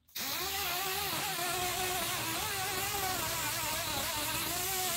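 Pneumatic dual-action orbital sander running steadily against body filler on a steel dash, a whine whose pitch wavers slightly with hand pressure, over a hiss of exhaust air.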